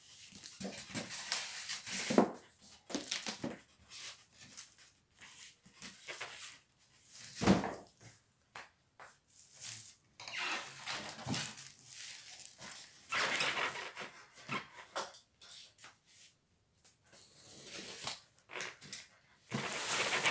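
Cardboard boxes and plastic wrapping being handled and moved, with irregular rustling and scraping and one thump about seven and a half seconds in.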